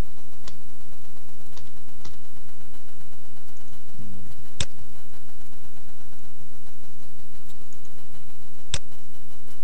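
A few light computer-keyboard keystrokes, then two sharper single clicks about four seconds apart, like mouse clicks, over a steady low hum.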